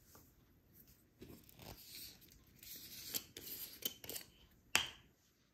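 Plastic wrapping on packaged bread being torn open and crinkled: irregular rustles and crackles, with one sharp snap near the end.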